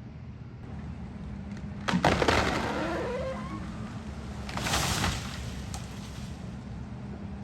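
Excavator's diesel engine running steadily while a eucalyptus tree cracks sharply and crashes down about two seconds in, branches and wood snapping as it goes. A second rush of crashing noise follows near the five-second mark.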